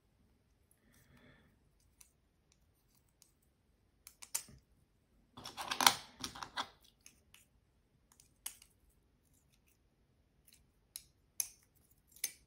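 Carbon-fibre arms and plates of a FlyFishRC Volador 3.5-inch drone frame clicking and clacking against each other as they are fitted together by hand. A quick run of rattling clacks about six seconds in is the loudest, and single clicks are scattered through the rest.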